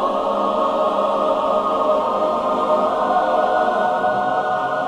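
Background film score: a choir singing long, held chords with no words heard.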